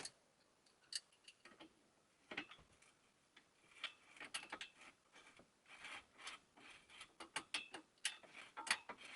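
Irregular light metallic clicks and ticks of a threaded bicycle headset's top parts being screwed down onto the fork steerer, sparse at first and coming thicker from about the middle on.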